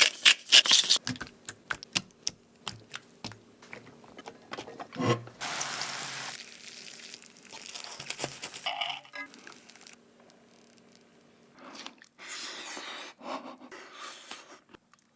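Food preparation sounds: a fast run of sharp knocks and clicks at the start, then scattered clicks and stretches of hissing noise.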